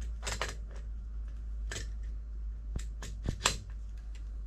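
Plastic clicks and scrapes as a YoLink valve controller's housing is worked by hand onto the stem adapter of a brass ball valve. There are about half a dozen short, sharp clicks, the loudest about three and a half seconds in, over a steady low hum.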